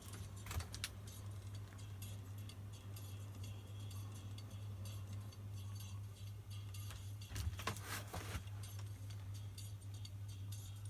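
Ela 103 record-cutting lathe running: a steady low hum with a fine, continuous ticking, and a few louder metallic clicks and rattles shortly after the start and again about seven to eight seconds in.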